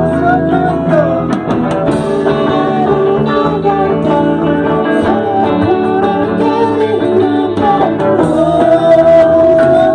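A song being rehearsed on guitar with singing, the melody held in long notes that bend in pitch, with a few short percussive hits.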